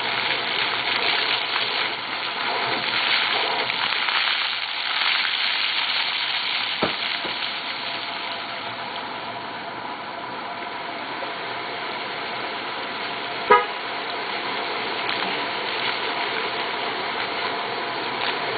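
Water fountain splashing: a steady hiss of falling water, with a single short pitched beep about two-thirds of the way through.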